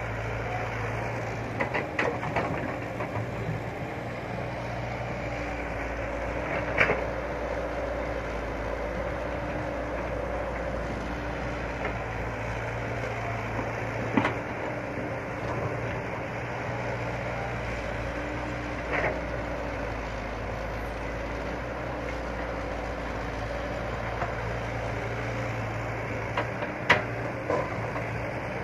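Excavator's diesel engine running steadily, swelling a little at times, with a few short sharp clanks from the machine, the loudest near the end.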